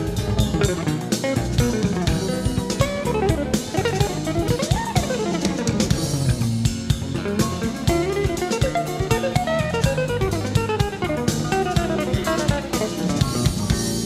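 Live jazz guitar instrumental: guitar playing quick runs that climb and fall over drum kit and bass, from an FM broadcast recorded on cassette tape.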